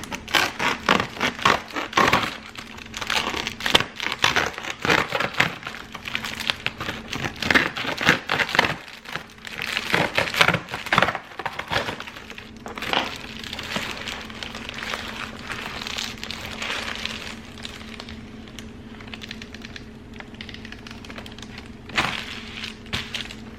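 Packaging being cut and torn open by hand: crinkling, crackling and tearing, busy for the first half and sparser later, with one more burst near the end. A faint steady hum runs underneath.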